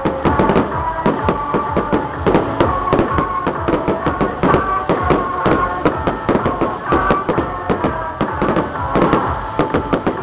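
Fireworks and firecrackers going off in quick, irregular succession, dense crackling and popping, with music playing underneath.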